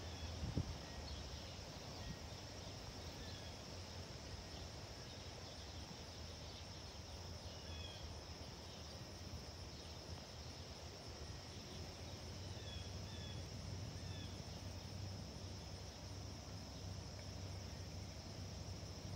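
Steady high-pitched drone of insects, with scattered short bird chirps over a faint low rumble.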